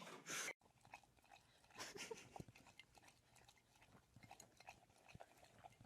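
Faint, irregular chewing and crunching, an animal eating, after a brief louder sound that cuts off abruptly about half a second in.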